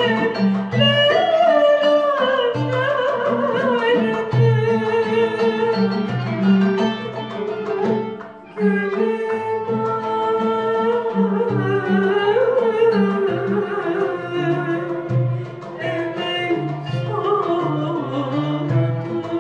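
A female soloist sings a Turkish classical şarkı in makam Kürdîlihicazkâr with heavily ornamented, gliding phrases. She is accompanied by violin, oud, kanun and hand percussion in the curcuna rhythm. There is a short break in the line about eight seconds in.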